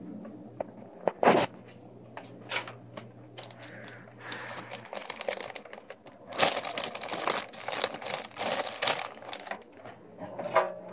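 Clear plastic bag crinkling and rustling, with irregular clicks and knocks as tubing, plastic fittings and a power cord are handled; the crinkling is densest and loudest about two-thirds of the way through. A low steady hum stops about halfway.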